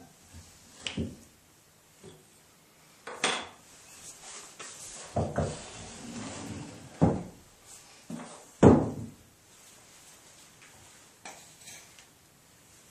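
Solid oak table parts knocking and scraping as they are handled and fitted into the pedestal: about five sharp wooden knocks, the loudest near the end, with a stretch of scraping in between.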